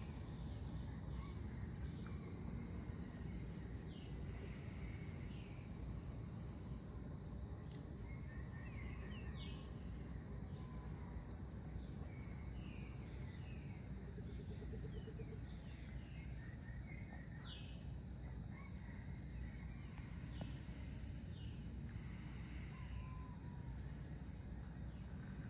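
Tropical dawn chorus: a steady high-pitched insect drone with many short, falling bird calls scattered throughout, over a low, steady rumble.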